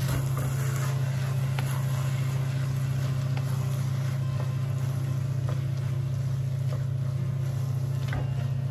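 Wooden spatula scraping and knocking against a nonstick wok as noodles are tossed in a stir-fry, a few sharp clicks over a steady low hum.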